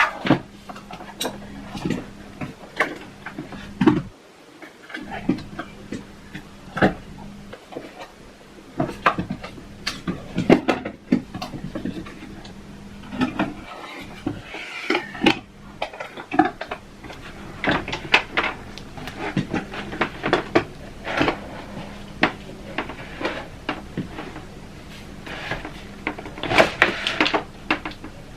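Scattered clicks, knocks and clatter from a hooded bonnet hair dryer being handled and set up, its parts pressed, latched and moved, with a faint steady hum underneath.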